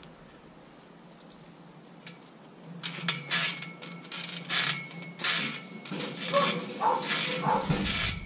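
A metal monkey-bar frame clinking and the leafy tree branches laid over it rustling as a child swings hand over hand across the bars. The sounds come in a run of short bursts, about one per swing, starting about three seconds in.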